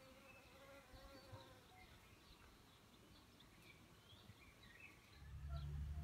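Quiet outdoor ambience with a flying insect buzzing and faint bird chirps. About five seconds in, a low steady hum sets in and becomes the loudest sound.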